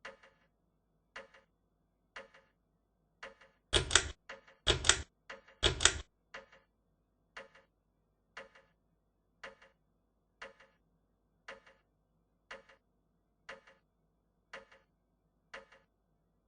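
Hunter Sea Island/Air 52-inch ceiling fan running, with a regular double tick about once a second. Around four to six seconds in, three louder noises of about half a second each come in.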